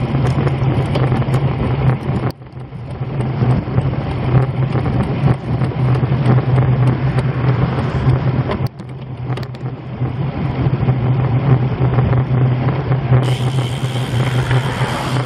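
Wind rushing over the microphone of a camera on a moving road bike, with road noise underneath: a steady low rumble that drops away briefly twice.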